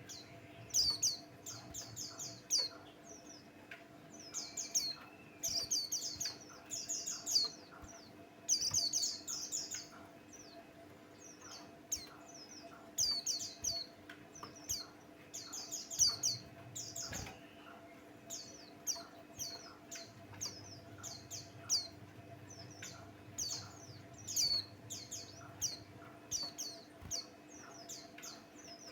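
A white-eye singing in rapid, high chirping phrases of a second or two each, repeated with short pauses, over a faint steady hum.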